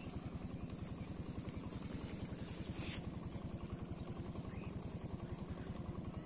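A small engine running steadily in the background, a fast even low pulse, with a continuous high-pitched whine above it and a brief click about halfway through.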